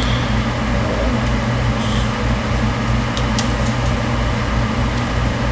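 Steady mechanical hum with a strong low drone, as from a running fan or appliance motor, with a few light clinks of a metal spoon in a glass cup about three seconds in.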